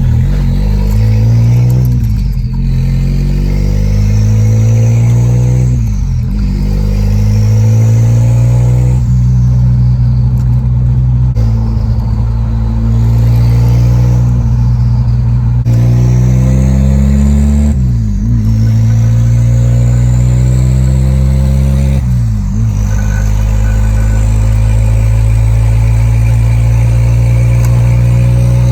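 Car engine accelerating through the gears: the engine note climbs steadily and then drops sharply at each gear change, about every three to four seconds.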